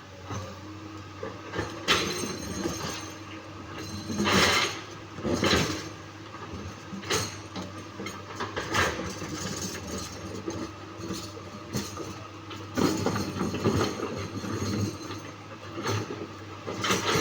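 Komatsu PC200-8 excavator's diesel engine running steadily, with repeated heavy clanks and scrapes of boulders against its steel bucket as it works.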